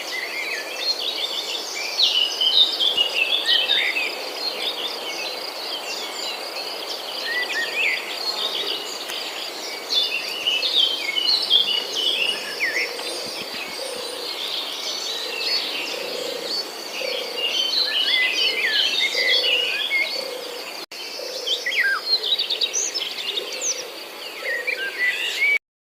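Many small birds chirping and calling at once over a steady, high insect trill, with a lower call repeating through the second half. The sound cuts off abruptly shortly before the end.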